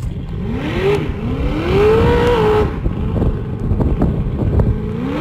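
Big-block car engine under hard acceleration. The revs climb, drop at a gear change about a second in, climb again and level off, then ease back. They start rising again at the very end.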